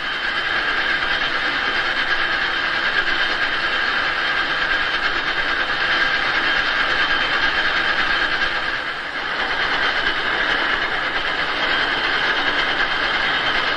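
Gear hobbing machine cutting teeth on a gear blank: a steady mechanical clatter with a high whine running through it, dipping briefly about nine seconds in.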